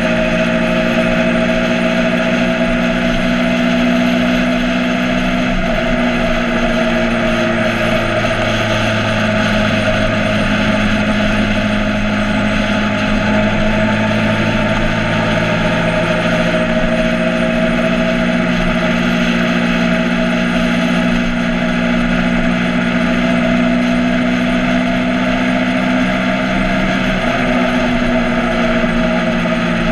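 Motorcycle engine running steadily under way, its pitch dipping and rising a few times, over a steady rushing noise.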